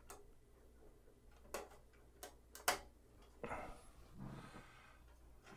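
Faint clicks and snaps of a CD being pressed onto the hub of a slimline DVD drive's open tray, the loudest click about two and a half seconds in, followed by a short, faint scraping of handling.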